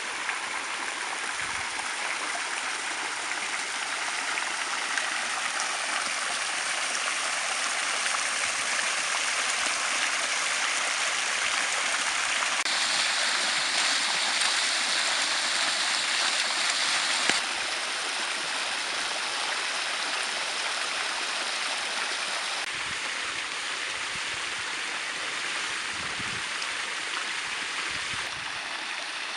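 Swimming-pool water features: a steady rush of falling, splashing water, its character changing abruptly a few times, where the sound brightens and then settles back.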